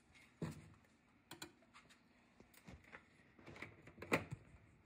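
Irregular light clicks and taps of hard plastic, a dozen or so, as plastic feeder-insect containers are handled and nosed by cats, with sharper knocks about half a second in and about four seconds in.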